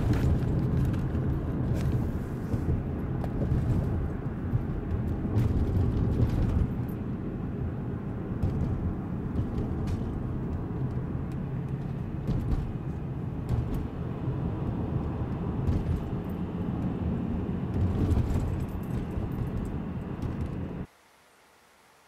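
Steady low rumble of a car heard from inside its cabin, with a few light clicks. It cuts off abruptly near the end.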